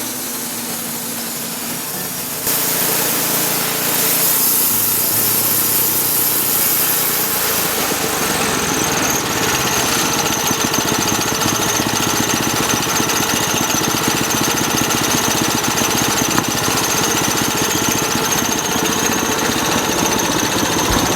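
Wood-Mizer LT10 portable band sawmill running, its band blade cutting through a freshly felled, wet red elm log. The sound gets louder about two and a half seconds in, and a steady high whine joins about nine seconds in.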